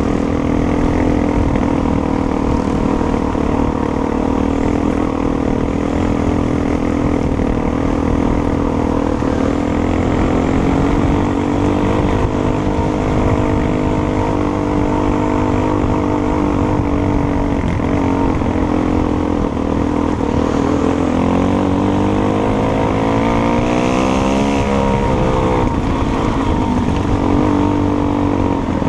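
Dirt bike engine running while riding a trail, its pitch rising and falling with the throttle, with a clear dip and climb about three quarters of the way through.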